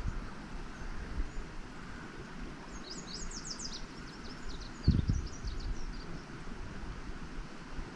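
Wind buffeting the microphone, with a songbird singing a quick run of high chirps about three seconds in and scattered chirps after it; a low thump about five seconds in.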